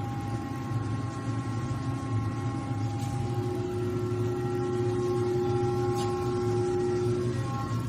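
MJC CNC spinning lathe's spindle drive running, a steady electric hum with several steady whining tones above it; another mid-pitched tone comes in about three seconds in and drops out near the end.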